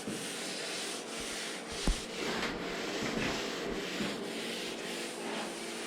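Abrasive sanding sponge rubbed by hand along the edge of a painted scooter side panel, matting down the clear coat so the next coat will stick. A single short knock about two seconds in.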